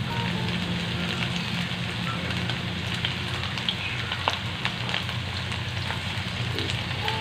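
Sliced onion and minced garlic sizzling in hot oil in a nonstick pan as they are stirred with a spatula: a steady hiss with scattered small crackles.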